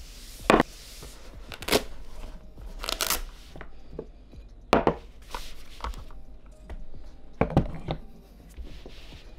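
Handling noise on a tabletop: about half a dozen sharp knocks as a drinking glass and camera gear are set down, with rustling of the foam camera wrap between them.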